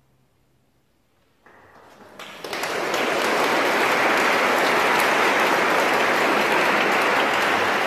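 A moment of near silence, then audience applause breaking out about a second and a half in and quickly building to full, steady clapping.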